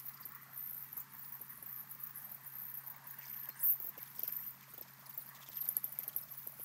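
Outdoor pond ambience from a fixed microphone: a steady low hum under a faint hiss, with scattered soft ticks and clicks.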